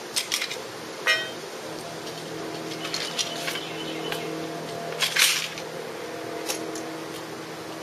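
Pool water splashing and a few light clicks as an AK-47 is handled just under the surface, the loudest splash about five seconds in, over a steady low machine hum.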